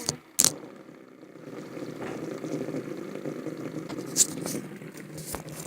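Fidget spinners spinning with a steady whirring hum, with sharp clicks from handling them about half a second in and again about four seconds in.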